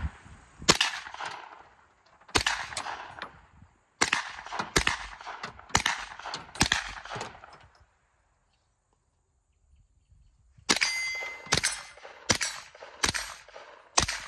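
Brigade BM-9 9mm AR-9 pistol fired semi-automatically: a string of six single shots roughly a second apart, a pause of about three seconds, then five more shots at a slightly quicker pace, each report with a ringing tail. A short high ringing note follows the first shot of the second string.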